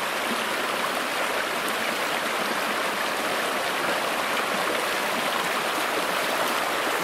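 Shallow rocky stream rushing steadily over and between stones, an even, unbroken wash of water.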